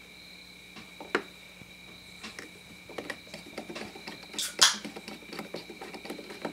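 Small metal clicks and light scraping ticks as a screwdriver turns the jet into a Briggs & Stratton carburetor body and the parts are handled, with a sharp click about a second in and the loudest clicks around four and a half seconds. A faint steady high whine sits underneath.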